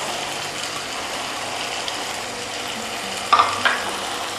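Onion-tomato masala sizzling steadily in oil in a kadai as it is stirred, with two short knocks a little over three seconds in.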